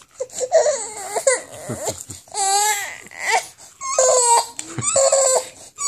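A toddler crying and whining in a run of several high, wavering wails, one after another.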